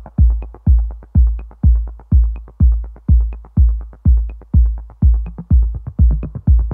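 Background electronic music: a steady drum-machine kick beat, about two beats a second, with faint light ticks above it.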